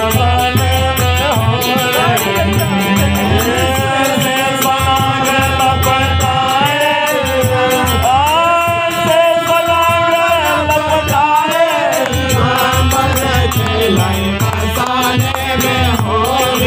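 Bagheli phag, a Holi folk song: a voice sings gliding melodic lines over sustained harmonium tones. A steady low drumbeat and rattling percussion keep the rhythm.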